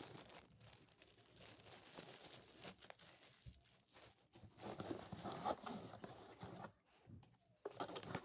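Faint rustling and crinkling of plastic packaging being handled, with scattered light clicks and a louder stretch of handling noise about halfway through.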